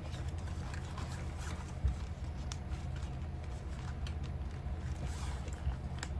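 Faint rustles and light clicks of a nylon handbag being handled, with a soft thump about two seconds in, over a steady low hum.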